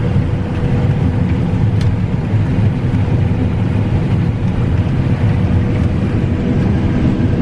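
Combine harvester running steadily while harvesting beans, heard from inside the cab: a constant low drone of engine and threshing machinery with a faint steady whine above it.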